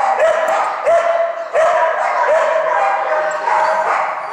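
A dog barking over and over in high, drawn-out yelps, a bark every second or so. The barking gives way to a busier, noisier stretch about two and a half seconds in.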